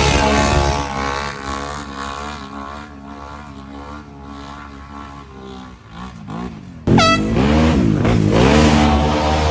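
Off-road ATV engine running hard under load, its pitch wavering and slowly sagging. About seven seconds in it cuts suddenly to a louder stretch where the revs rise and fall.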